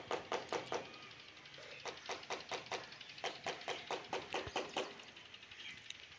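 A fast, even tapping, about four to five knocks a second. The run breaks off for about a second and then picks up again.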